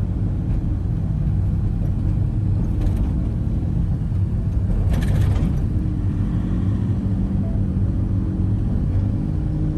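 Steady low rumble of a vehicle in motion, heard from inside, with a couple of soft clicks about three and five seconds in.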